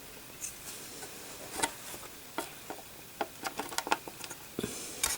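Scattered light clicks and taps of a plastic AGP slot connector being handled and set against a motherboard, several in quick succession about three seconds in.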